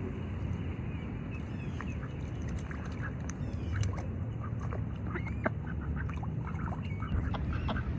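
Ducks calling with short, scattered quacks over a steady low rumble.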